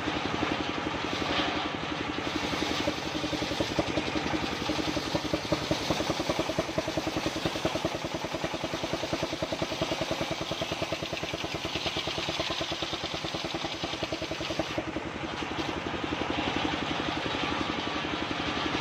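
Engine driving an assembled circular saw rig, running steadily with a fast, even beat.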